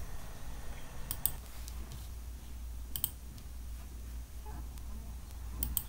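Computer mouse clicking: three quick double clicks, about a second in, three seconds in and near the end, over a low steady hum.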